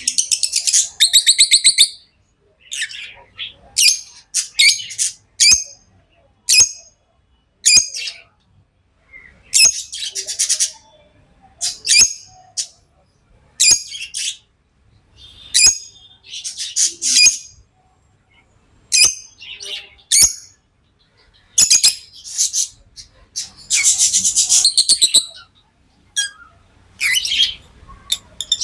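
Lovebirds chirping in quick bouts of shrill, high-pitched calls with short pauses between them, and a few sharp clicks in the gaps.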